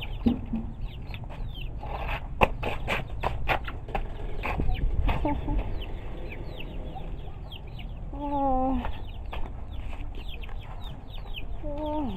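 A small flock of chickens clucking and calling, with many short, high, falling peeps throughout and one longer wavering call about eight seconds in. A run of sharp clicks comes about two to four seconds in.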